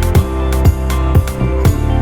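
Background music with a steady beat, about two beats a second over sustained chords.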